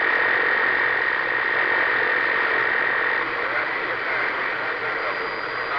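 CB radio receiver putting out a steady hiss of static with a steady high whistling tone through the first half. The static cuts off suddenly near the end.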